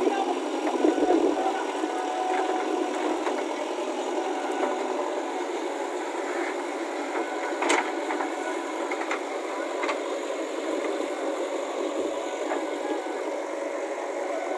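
JCB backhoe loader's diesel engine running steadily as the machine works bogged in deep mud. A few short sharp knocks cut through it, the loudest about eight seconds in.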